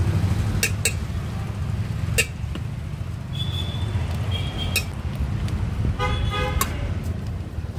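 Street traffic: a steady engine rumble with vehicle horns tooting briefly three times, over the sharp clinks of a steel spoon against a steel pot and containers.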